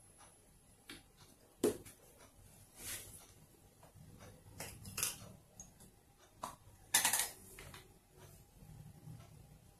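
Handling noise from a PCP air rifle with scope and bipod being lifted and moved: scattered light clicks and knocks of its metal and wooden parts, a sharp click about two seconds in and the loudest, a short clatter, about seven seconds in.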